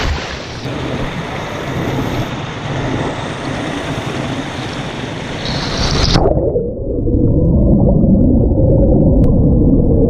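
Waterfall water pouring and churning in a plunge pool, a loud steady rush of white water. About six seconds in it turns abruptly muffled and deeper, a booming underwater rumble of the falling water heard from below the surface.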